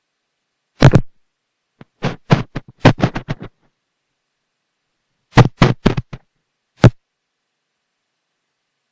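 Computer keyboard keystrokes: a single click, then a fast run of about ten, then a shorter run of about five and one last click, separated by silent pauses.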